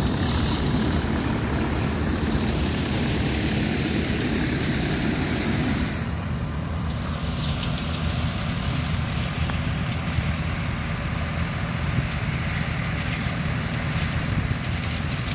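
Wind noise on the microphone for the first six seconds. After that, a tractor engine drones steadily at constant speed while driving a grain cart's unloading auger, which pours soybeans into a truck.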